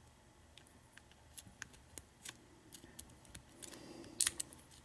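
Lock pick and tension wrench working the pins inside a Master Lock Pro Series 6327 padlock during single-pin picking: irregular small metallic clicks and ticks, with a louder cluster of clicks about four seconds in.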